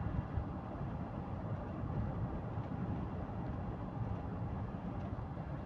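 Steady low rumble of a moving vehicle heard from inside the cabin: engine and tyre noise on a highway, with no distinct events.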